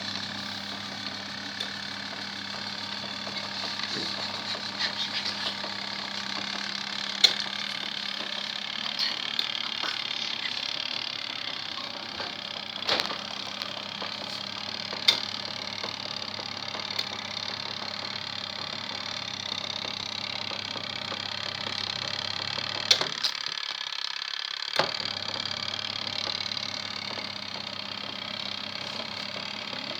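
Easymax mini washing machine running a wash: its motor hums steadily while water and laundry churn in the tub, with scattered sharp clicks. About three-quarters of the way through, the motor stops with a click for about two seconds, then starts again.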